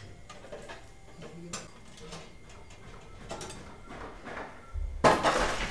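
Faint clicks and taps of a screwdriver and metal parts as the expansion-slot covers on the back of a PC case are unscrewed. About five seconds in comes a sudden loud burst of noise lasting about half a second.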